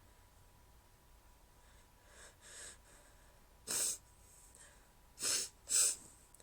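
A woman's stifled sneezes: two faint catching breaths about two seconds in, then three short muffled sneezes held back in the nose and mouth, the last two close together near the end.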